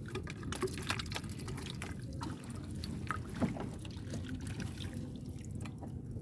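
Water lapping and sloshing against the hull of a small boat, with scattered small clicks and knocks.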